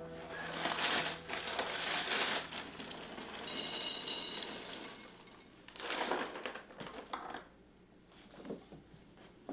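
Plastic cereal bag crinkling and rustling, then puffed cereal pouring into a bowl with a rapid dry rattle, followed by a few quieter rustles and knocks.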